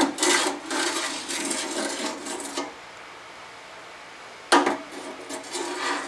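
Small metal parts being handled and shuffled: a rattling scrape for about two and a half seconds, then a sharp knock about four and a half seconds in and more clinking.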